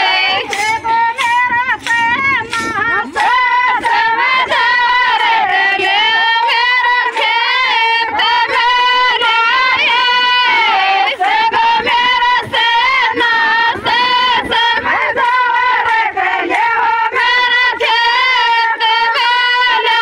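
A high-pitched female voice singing a folk dance song in long, wavering notes with quick bends in pitch, loud and with hardly a break.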